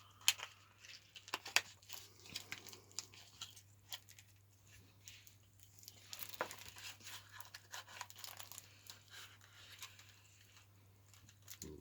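Plastic cellophane wrapper on a deck of playing cards being cut open and torn off, crinkling, with scattered sharp clicks and crackles from handling the wrapper and card box.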